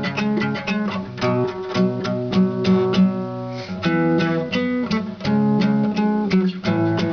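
Acoustic guitar playing: a quick run of picked notes over sustained low chord notes.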